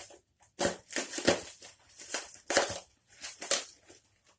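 Packaging being cut open with scissors: irregular snips, scrapes and crinkling of wrapping in short bursts.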